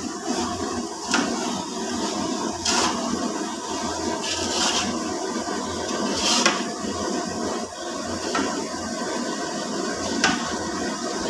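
Long metal spatula scraping and stirring a thick, gritty mix of melted lac and corundum grit in a large iron wok, with sharper scrapes every second or two. The mix is being worked without pause as it stiffens, a stage in making a lac-bonded sharpening stone.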